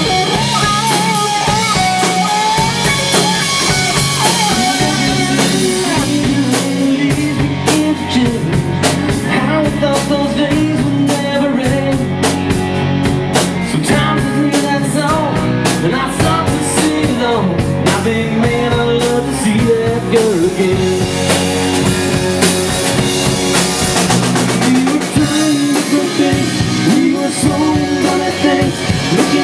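Live rock band playing at full volume: a Ludwig drum kit keeping the beat under electric guitar and bass, with a male lead singer.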